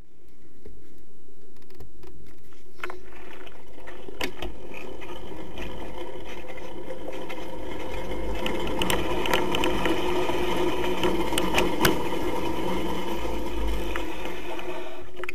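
50cc two-stroke moped engine with an Airsal T6 cylinder kit, Doppler head and Giannelli expansion pipe, running flat out at steady high revs during a top-speed run. Scattered sharp clicks come in over it in the second half.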